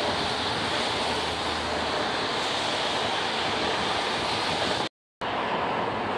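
Steady rushing running noise of passing red regional and S-Bahn trains on the tracks below, broken by a sudden cut to silence for a moment about five seconds in.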